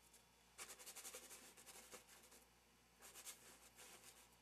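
Faint, scratchy strokes of acrylic paint being worked onto a stretched canvas, in two runs: one starting about half a second in and another about three seconds in.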